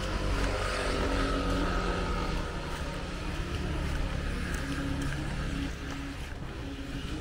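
Street traffic: a motor vehicle's engine running close by, loudest in the first two seconds or so and then easing off.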